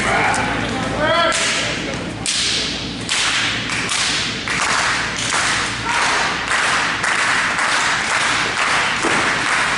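Wrestling crowd clapping in unison: a shout about a second in, then sharp claps that speed up from about one a second to about two a second and hold that beat.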